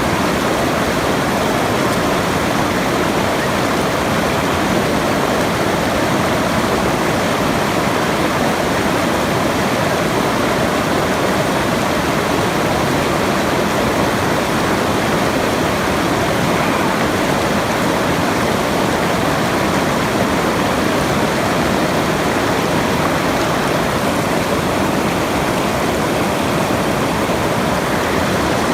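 Steady rushing of running water, unchanging and even throughout.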